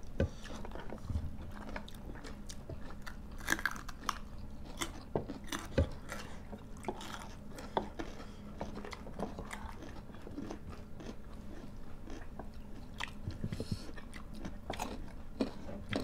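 People eating by hand close to the microphone: chewing and biting, with many short mouth and finger clicks scattered irregularly.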